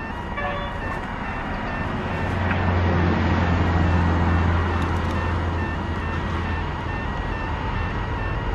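Train approaching along the line: a low, steady engine drone that swells from about two seconds in, is loudest around the middle, and eases off near the end.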